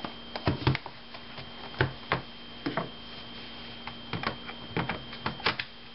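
Irregular plastic clicks and knocks from an HP Pavilion dv6 laptop being handled as its battery is slotted back in.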